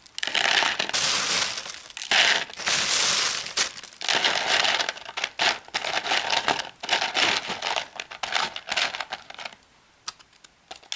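Dry ice pellets being scooped by hand from a plastic bag and dropped into a plastic tub: the bag crinkles and the pellets rattle and clatter against the plastic, stopping near the end.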